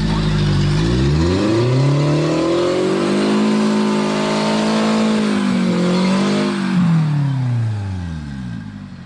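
Off-road 4x4 engine revved hard to climb out of a mud hole: the revs rise over the first couple of seconds, hold high with a brief dip, then fall away near the end as the vehicle comes clear.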